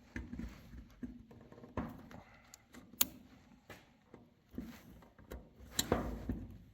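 Scattered light clicks and knocks of hands fumbling with an ignition key switch that will not turn, with a sharper knock about three seconds in and another near the end.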